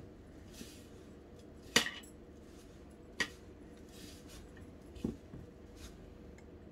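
Fingers rubbing and squeezing a crumbly flour-and-oil dough mixture in a bowl, giving a faint rustle, with about five sharp clinks against the bowl, the loudest about two seconds in.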